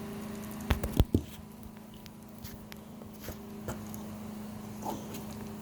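Small handling noises of slime and plastic toy pieces being played with: a few sharp clicks and knocks about a second in, then scattered light taps, over a steady low hum.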